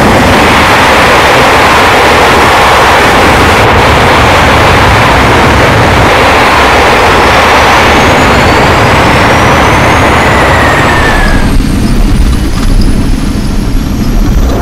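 Jet airliner engines, a loud steady roar with turbine whine. One whine glides down and stops about three-quarters of the way through, the roar thins to a low rumble, and a high whine keeps rising.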